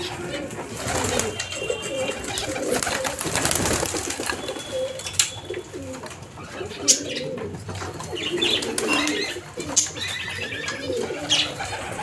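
Domestic pigeons cooing, with a stretch of wing flapping from about a second in and a few sharp taps, the loudest a little past the middle.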